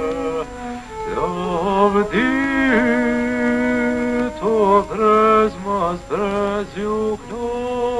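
A man singing an Albanian song, holding long notes joined by sliding, ornamented turns.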